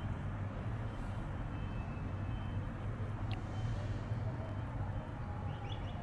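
Steady low hum of distant city traffic, with a few faint high chirps near the end.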